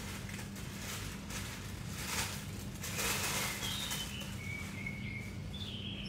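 Birds chirping, a few short whistled notes in the second half, over a steady low hum. Two brief rushes of noise about two and three seconds in are the loudest sounds.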